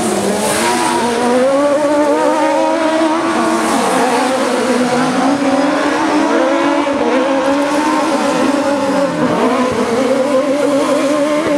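Several Buggy1600 autocross buggy engines running hard at once, their pitches rising and falling as the buggies accelerate and brake around the dirt track.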